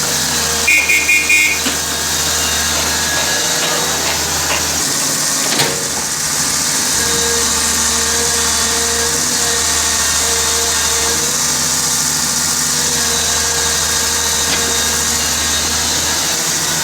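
Mini excavator's diesel engine running steadily. About a second in comes a quick run of about five high beeps, and a single sharp knock a few seconds later.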